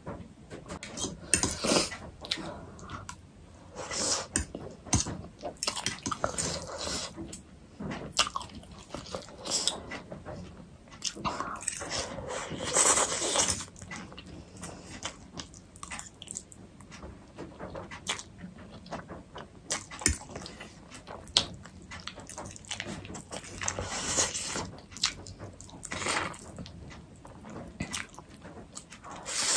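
Close eating sounds: a person chewing and smacking mouthfuls of black bean noodles and fried egg, with many irregular short clicks and a longer noisy stretch about halfway through.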